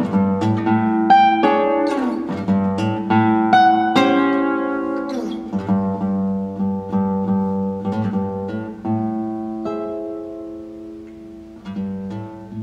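Classical (nylon-string) guitar played solo: quick plucked notes over a held bass note, thinning out and growing gradually quieter through the second half.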